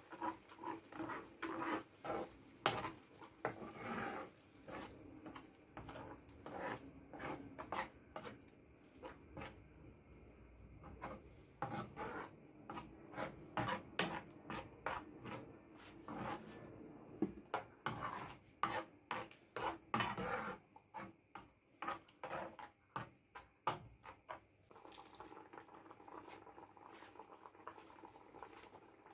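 A metal utensil clinking, knocking and scraping against a pot or bowl in irregular strokes, as in stirring or mixing food; it stops about 25 seconds in.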